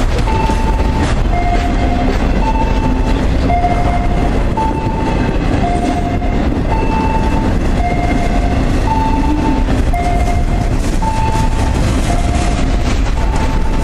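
Freight train boxcars rolling past with a steady rumble and wheel clatter. Over it a two-note electronic warning tone repeats, one higher note then one lower, about a note a second.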